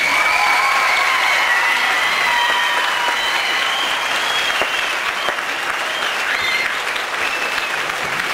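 Theatre audience applauding, with long high-pitched cheers held over the clapping.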